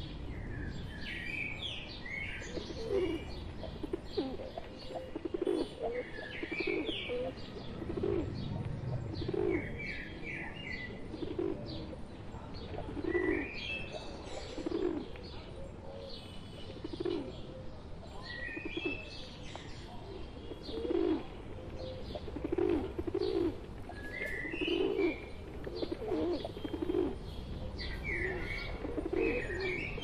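Flock of feral rock pigeons cooing over and over, about once a second, with smaller birds chirping in short rising and falling calls above them and now and then a wing flap.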